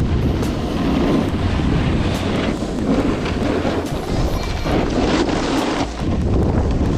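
Wind rushing over an action camera's microphone during fast snowboard riding, a steady low rumble, with background music underneath.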